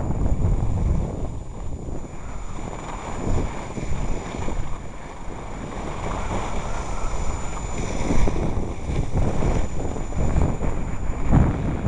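Wind buffeting the microphone of a camera carried by a moving skier, a gusting low rumble with the rush and scrape of skis on snow beneath it.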